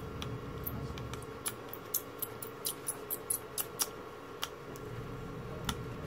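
A small screwdriver working a screw at the heatsink of a TV power-supply board: a run of sharp, irregular clicks, thickest from about one and a half to four seconds in, with a few more near the end.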